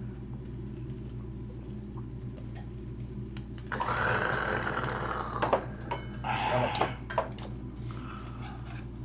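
Steady low hum of the overhead extractor hood above a charcoal yakiniku grill, with two short rushes of hiss-like noise, the first about four seconds in and the second a little before seven seconds, and a few light clicks of tableware.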